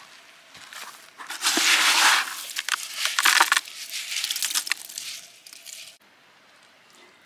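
Gritty granite sediment and gravel being scooped and tipped into a gold pan, a dense grinding crackle that swells twice.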